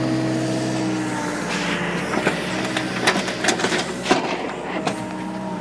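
Excavator engine running with a steady hum that fades about a second in and comes back near the end; in between, a series of sharp clicks and knocks.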